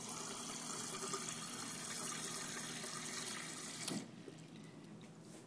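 KitchenAid Superba refrigerator's chilled-water dispenser running a steady stream into a wine glass, then cutting off with a click about four seconds in.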